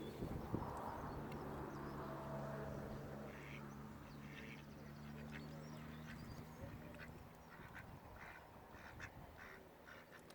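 Mallard ducks quacking, a run of short calls repeated in quick succession from a few seconds in, over a low steady hum that fades out about two-thirds of the way through.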